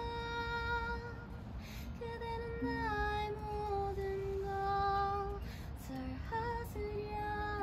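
A woman singing slow, long-held notes to her own acoustic guitar strumming, the melody stepping down in pitch partway through.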